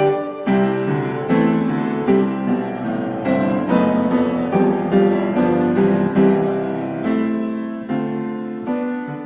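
Background piano music, a flowing melody of struck notes over a lower accompaniment.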